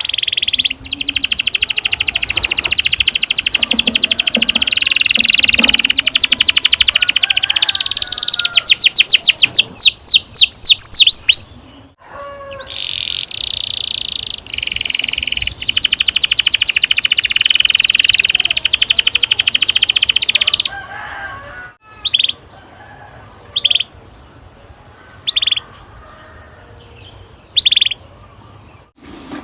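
Domestic canary singing long rolling trills: a fast, even roll for about ten seconds that breaks into a run of quick sweeping notes, then after a short pause a second long roll. Near the end it gives only short single chirps, one every second or two.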